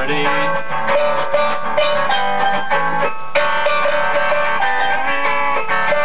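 Guitar playing a quick run of picked notes, one after another with no pause.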